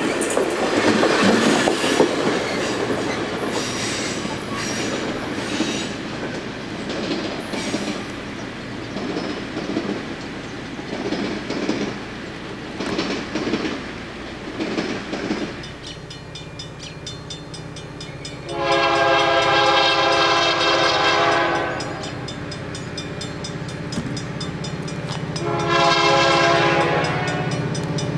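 Amtrak Superliner passenger cars rolling past on the rails with a clickety-clack of wheels over the joints, fading as the train pulls away. Then a low steady diesel drone of an approaching locomotive, which sounds its multi-tone air horn in two long blasts.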